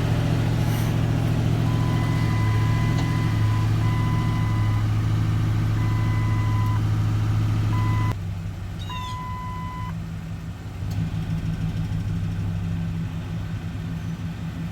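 Ford F-150 engine running during a key-on engine-running self-test, with an electronic beep of about a second repeating roughly every two seconds. About eight seconds in, the engine sound drops sharply to a quieter idle.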